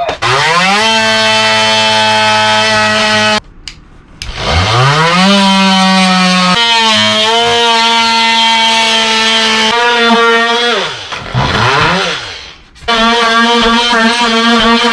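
An electric power tool's motor is triggered on in several runs. Each time it spins up with a rising whine, runs at a steady pitch, then cuts off or winds down, with short gaps near the start and about two-thirds of the way in.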